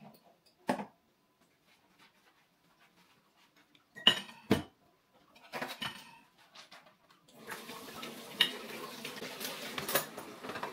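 Dishes being washed by hand at a sink: separate clinks and clatters of plates and cutlery, the loudest about four seconds in. From about seven seconds in, a steady rush of running tap water joins, with more clinks over it.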